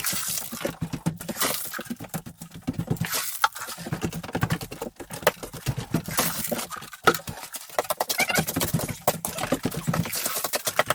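A wooden board jabbing repeatedly into wet concrete, making rapid, irregular knocks and wet slaps. This is rodding the mix to drive out air pockets and compact it.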